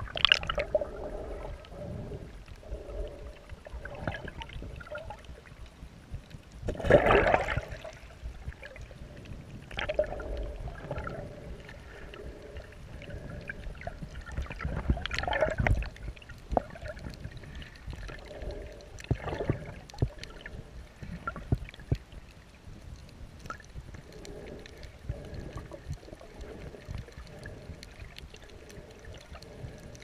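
Water and bubbles gurgling and sloshing, heard underwater through a GoPro's waterproof housing, with a loud rush of splashing about seven seconds in and smaller ones later.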